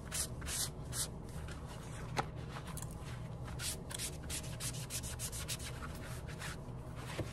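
A palm rubbing briskly back and forth over a flat leather panel: a quick run of brushing strokes, about three a second, loudest in the first second and fainter after. A steady low hum runs underneath.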